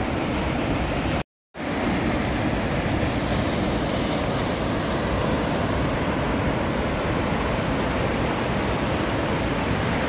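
Chorrillo del Salto waterfall's falling water, a loud, steady rush, broken by a brief moment of silence about a second in.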